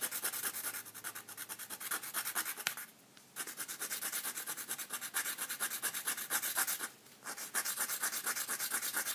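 Wooden paddle pop stick scraping heat-softened paint off a brass padlock in quick, even strokes, several a second, with two short pauses.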